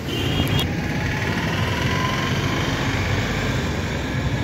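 Street traffic: vehicle engines running and passing on a busy road, with a short horn toot at the very start.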